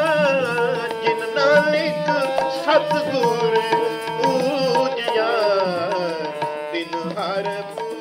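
Sikh kirtan: a man singing a devotional hymn in an ornamented, wavering melodic line over a steady harmonium and tabla.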